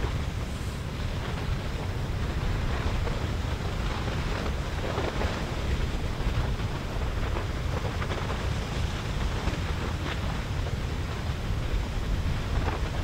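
Lava river flowing down its channel: a steady rushing noise with scattered faint crackles, as bits of crust and spatter break and fall, under a low wind rumble on the microphone.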